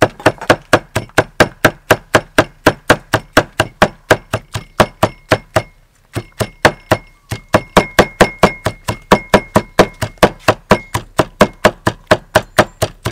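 Cleaver chopping dried red chilies on a thick wooden chopping block: quick, even strikes about four a second, with a brief pause about six seconds in.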